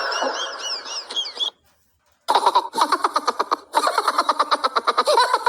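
Laugh sound effects: a squeaky, wavering giggle that dies away in the first second and a half, then, after a short pause, a rapid staccato laugh in two long runs of quick, evenly spaced pulses.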